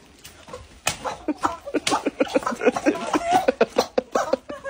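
Rubber screaming-chicken slippers squeaking under quick steps, mixed with rapid laughter, starting about a second in.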